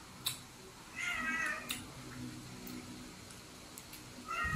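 Cat meowing twice: a short, high wavering call about a second in and another near the end.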